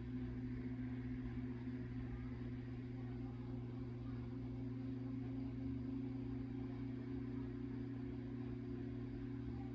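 A steady low hum, like an appliance or small motor running, holding one even pitch with no other sounds over it.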